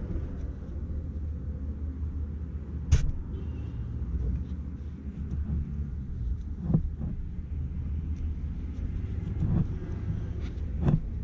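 Steady low background rumble with a few sharp clicks and knocks: the sharpest about three seconds in, softer ones later on and near the end.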